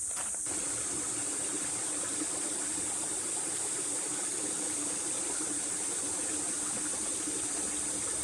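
Steady, unbroken high-pitched insect drone, like a summer cicada chorus, with a fainter low hum beneath it.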